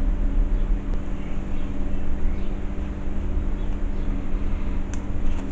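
A steady low mechanical hum with a constant drone, like a motor running, and a faint click about a second in and a few more near the end.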